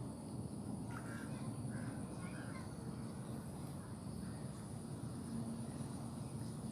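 Outdoor ambience: a steady low rumble with a faint continuous high whine, and a few short harsh calls one to three seconds in.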